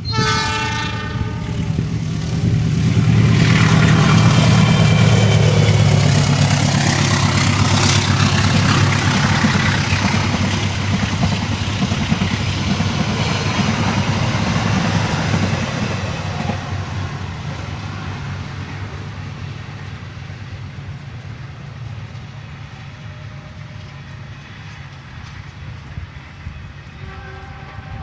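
Train horn sounding briefly, then a train passing with a loud low rumble. The rumble peaks a few seconds in and fades slowly away. A faint horn sounds again at the very end.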